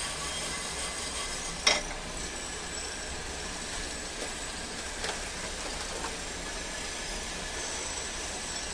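Steady rushing of a lit gas stove burner under a nonstick pan of whole spices dry-roasting. One sharp knock about two seconds in as the shaken pan comes down on the grate, then a few faint ticks.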